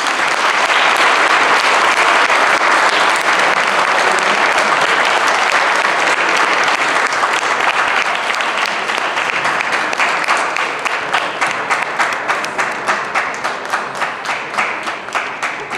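Audience applauding loudly after a song; in the second half the clapping falls into a steady rhythm of a few claps a second.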